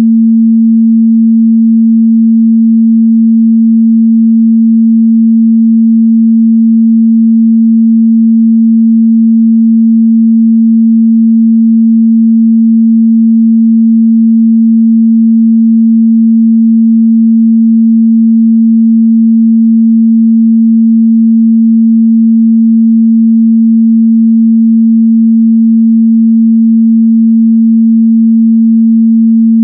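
Steady 226 Hz sine-wave test tone, a single pure low hum held at constant loudness, used to check a speaker's or headphones' mid-bass response.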